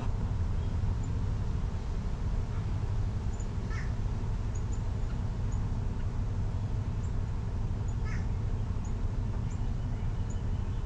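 Two short animal calls, about four seconds apart, over a steady low rumble, with faint high chirps scattered throughout.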